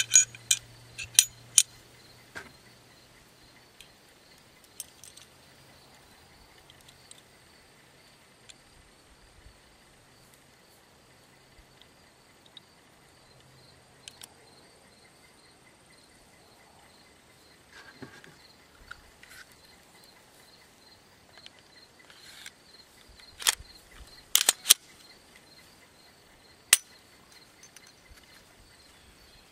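Glock 19 9mm pistol firing single shots at uneven intervals: three or four in quick succession at the start, a few scattered shots through the middle, and another cluster of shots near the end. A faint, steady, high-pitched hum runs under them.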